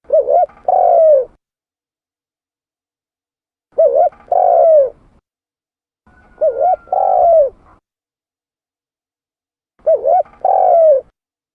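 Spotted dove (tekukur) cooing: four calls spaced about three to four seconds apart. Each call is a quick two-note opening followed by one longer, drawn-out coo.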